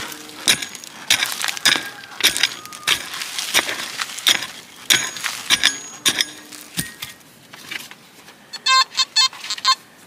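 A small hand pick with fork tines chopping and scraping into loose forest soil, striking about once every two-thirds of a second while digging out a metal detector target. Near the end comes a short burst of rapid high beeps.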